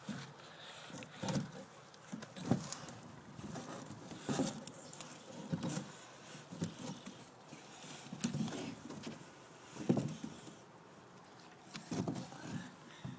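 Irregular knocks, thuds and scraping as wooden boards are handled and propped up against a wooden fence, with close handling noise on the phone's microphone.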